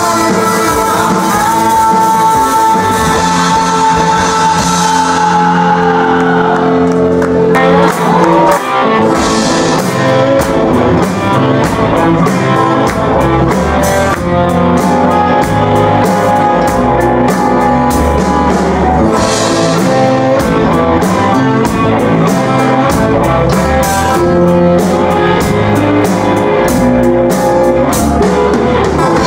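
Rock band playing live, with distorted electric guitars, drum kit and a sung vocal. Over the first several seconds a held high note slides down in pitch, then about eight seconds in the full band drives in with steady drums and cymbals.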